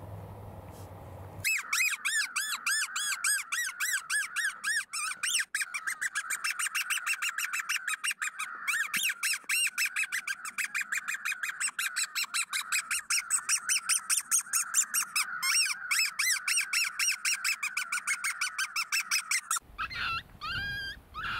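A predator call sounding a long, fast, evenly repeated run of high squealing distress cries that starts and stops abruptly. Near the end a different, wavering call takes over.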